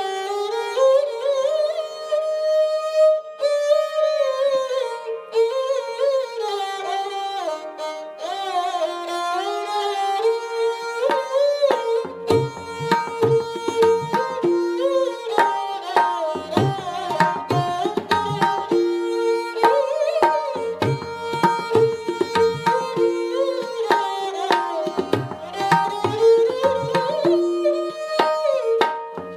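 Background instrumental music: a sliding, ornamented string melody, joined by hand-drum strokes about twelve seconds in.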